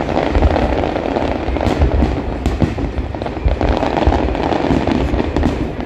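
Aerial fireworks bursting: a dense, continuous crackle of many small reports, with a deep boom every second or so.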